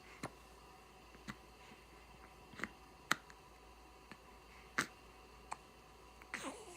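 Baby hiccuping: about six short, sharp hics at irregular gaps of roughly a second, with a short gliding sound near the end.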